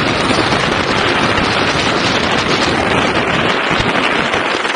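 Electric scooter riding on a concrete road: a loud, steady rush of knobby-tyre road noise and wind across the low-mounted camera's microphone.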